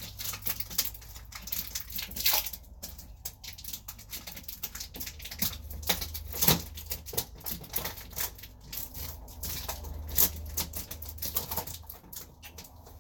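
Irregular clicks, taps and rustling of things being handled and fitted by hand, over a low steady hum.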